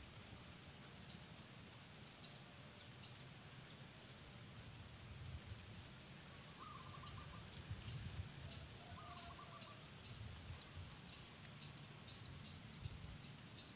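Quiet swamp-edge ambience: a steady high hiss with a low rumble underneath, and two short trilled bird calls, one about seven seconds in and another about two seconds later.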